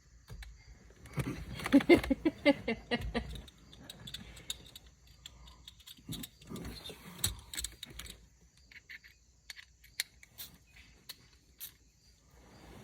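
Small metal tools and parts clinking and clicking on and off as they are handled, with a short stretch of an indistinct voice about one to three seconds in.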